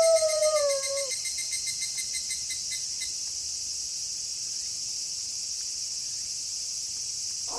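A wolf's howl slides down in pitch and ends about a second in. After it comes a steady night chorus of crickets chirping.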